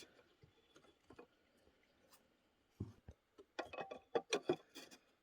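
Ratchet wrench with a 15/16 socket clicking in short, uneven runs, starting a little under halfway through after a quiet stretch.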